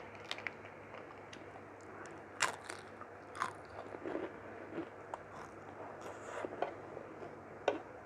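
Close-miked chewing and biting of mutton curry with rice: irregular mouth smacks and sharp little clicks, the loudest about two and a half, three and a half and seven and a half seconds in.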